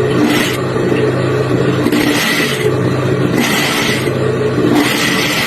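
Factory machinery running with a steady motor hum, and a hiss that repeats about every one and a half seconds, each lasting about half a second.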